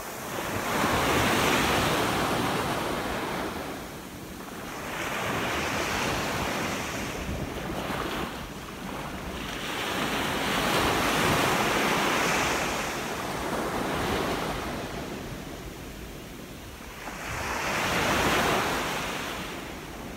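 Ocean surf breaking and washing up a sandy beach, swelling and ebbing about five times, one wave every three to four seconds. Wind rumbles low on the microphone underneath.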